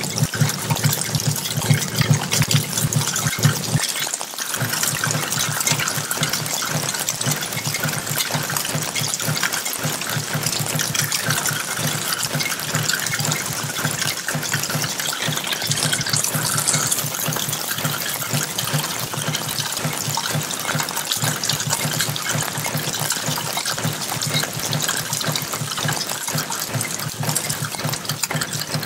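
Rainwater gushing and splashing steadily as runoff pours down a brick wall onto the alley pavement.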